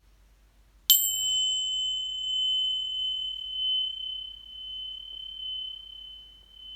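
Homemade metal singing bowl struck once about a second in, then ringing with a clear, high tone that swells and fades slowly as it dies away; its fainter upper overtones die out within a few seconds.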